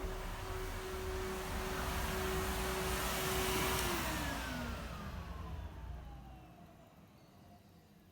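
A vehicle passes by: its engine tone and tyre rush swell, the tone drops in pitch as it goes past about four seconds in, then the sound fades away.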